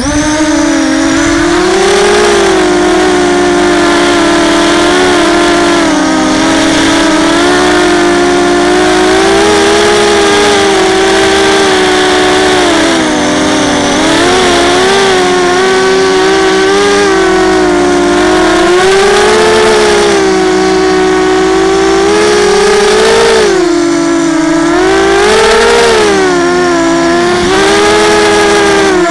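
ZMR250 racing quadcopter's electric motors and propellers running right beside the onboard camera's microphone, starting abruptly as the motors spin up. A loud, steady whine whose pitch keeps rising and falling with the throttle changes of flight.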